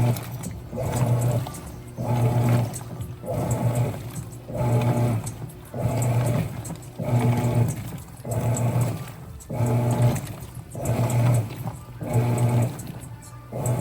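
Mueller Popmatic 8 kg top-loading washing machine agitating: the motor hums in short pulses about once a second, with water sloshing in each pulse.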